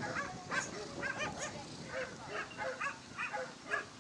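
Dogs yipping and yelping in quick succession, short high-pitched calls at about three a second.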